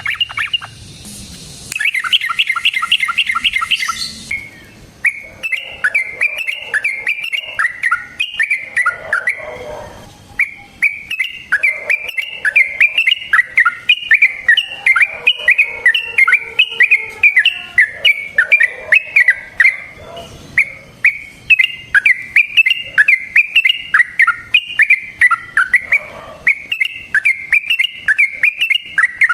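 Yellow-vented bulbul (trucukan) singing long, fast chattering phrases: runs of short, bubbling, rising-and-falling notes, several a second, with a quick rolling trill a couple of seconds in. This is the excited fighting song used as a lure to make other bulbuls answer.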